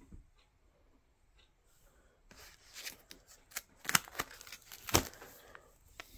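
Plastic disc sleeves in a zippered DVD binder crinkling and crackling as a page is handled and turned. It is quiet for about two seconds, then comes a run of sharp crackles and clicks, loudest about four and five seconds in.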